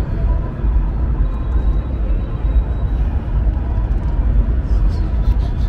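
Loud outdoor street ambience at a march, dominated by a heavy steady low rumble. Near the end comes a quick run of sharp high taps, about five a second.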